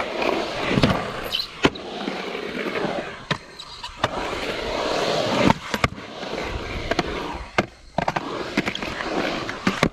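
Skateboard wheels rolling on a concrete skatepark, the rumble swelling and fading, with several sharp clacks of the board and trucks striking.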